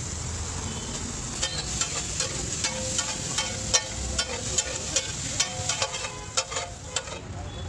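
Metal spatula rapidly clattering and scraping on a large flat tawa griddle as chopped vegetables are tossed and chopped in frying oil, over a steady sizzle. The strikes start about a second and a half in and stop shortly before the end.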